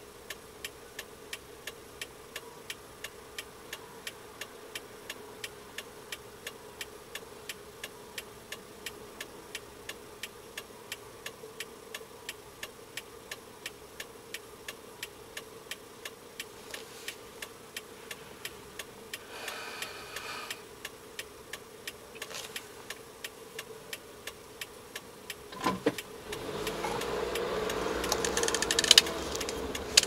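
A car's turn-signal relay clicking about two and a half times a second over the engine idling. About 26 seconds in, the engine note rises as the car pulls away and turns.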